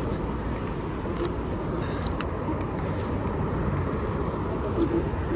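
Street traffic: a steady rush of cars going by, with a few short clicks about a second and two seconds in.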